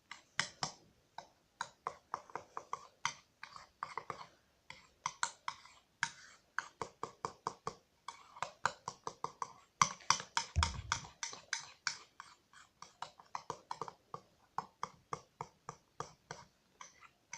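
Glue and shaving-foam slime mixture being stirred in a bowl: quick wet clicks, several a second, with one low thump a little past halfway.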